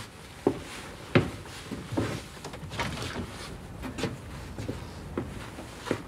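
A man moving about under wooden attic rafters and handling a sloping roof window: a run of light knocks and creaks of wood and frame, the sharpest about a second in, over a low room hiss.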